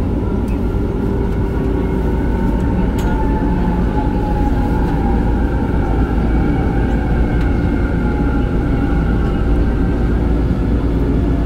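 MRT Line 3 train running: a steady low rumble with a whine that falls slowly in pitch.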